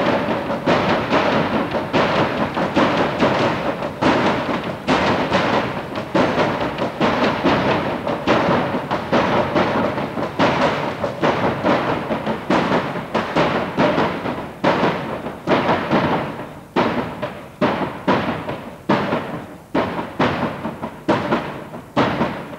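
Percussive music of dense, heavy drum strikes with a faint steady tone underneath. The strikes thin out to separate beats near the end, then stop abruptly.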